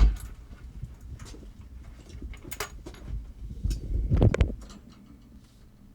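Scattered clicks and knocks of things being handled: a sharp click at the start, light ticks, then a cluster of louder knocks about four seconds in.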